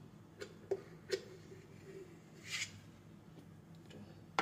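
Kitchen handling sounds from a fork and a container at a mixing bowl: a few light clicks and taps, a short scrape about two and a half seconds in, and a sharper click near the end, over a low steady hum.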